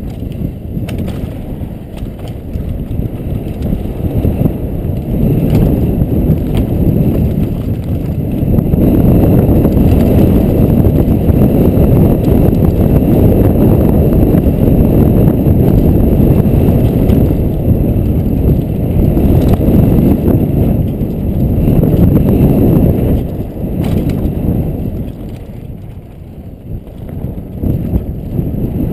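Downhill mountain bike riding on a dirt singletrack: rushing wind on a helmet-mounted camera microphone and tyre rumble, with scattered rattles and clicks from the bike. It eases briefly near the end, then picks up again.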